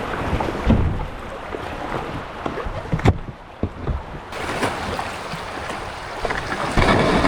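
Water splashing and rushing around a kayak on a moving river, with a few sharp knocks, wind buffeting the microphone, and the noise growing louder near the end.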